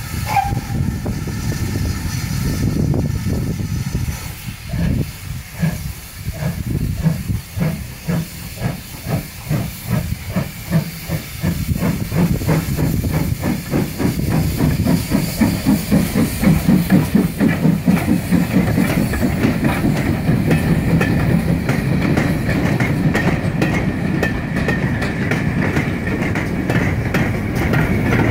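Small tank steam locomotive hauling coaches, its exhaust chuffing in a regular beat over steady steam hiss; the beats come quicker and louder as it gets under way and draws near.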